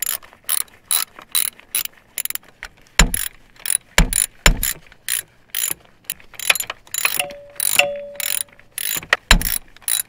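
Hand ratchet clicking in runs of strokes, about two to three clicks a second, as it drives a 6 mm Allen-bit adapter snugging down the high-pressure fuel pump's mounting bolts, with a few dull knocks in between.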